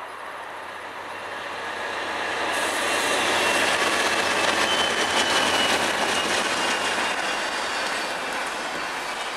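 Norfolk Southern diesel locomotives and a double-stack container train passing close by. The noise builds over the first three seconds as the locomotives go past, then gives way to the steady rumble and clatter of wheels on rail, with a faint high whine about halfway through.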